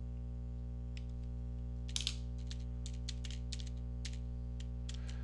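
Typing on a computer keyboard: a quick run of separate keystrokes from about two seconds in to near the end, over a steady low hum.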